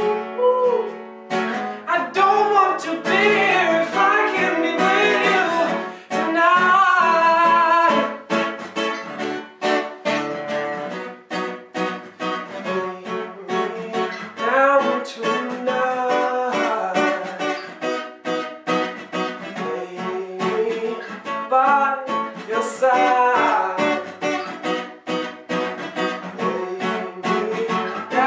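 Music: strummed acoustic guitar with a singer's voice holding long, wavering notes over it.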